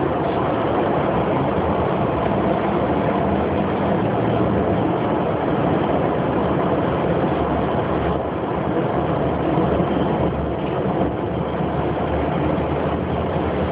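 Steady engine and road noise of a moving vehicle, heard from inside the cabin.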